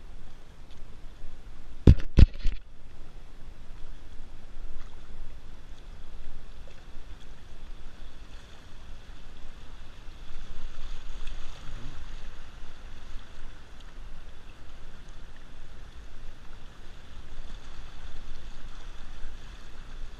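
Fast river water rushing and splashing around an inflatable kayak running through riffles, with paddle blades dipping into the water. About two seconds in come three sharp knocks, the loudest sound.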